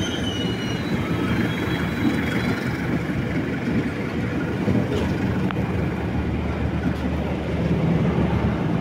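Hauled, unpowered KRL electric commuter train cars rolling past close by, a steady rumble of wheels on the rails, with a faint high squeal fading out in the first couple of seconds.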